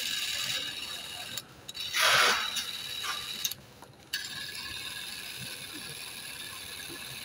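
Fujica Single-8 P100 film camera's battery-driven motor and film transport whirring. It stops and restarts twice as the release button is pressed and let go, with a brief louder burst about two seconds in. The camera is running normally.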